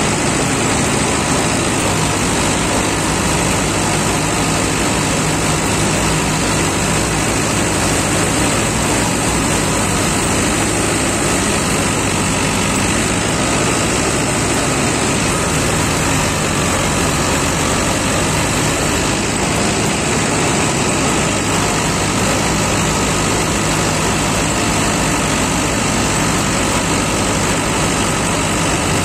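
Combine harvester running steadily while cutting a crop: a continuous engine drone mixed with the noise of the header reel and cutter bar working through the stalks.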